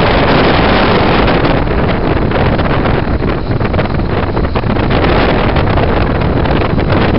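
Loud, steady wind rush buffeting the microphone of a moving motorcycle, with its engine and road noise running underneath.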